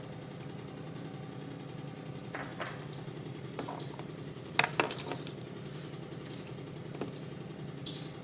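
Knife cutting a woody giloy stem into small pieces: a few scattered clicks and knocks on the board, the loudest about four and a half seconds in, over a steady low hum.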